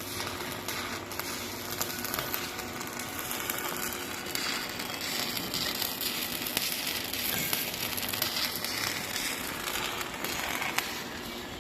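Electric arc welding: a steady crackling sizzle of the arc, thick with small sputtering clicks.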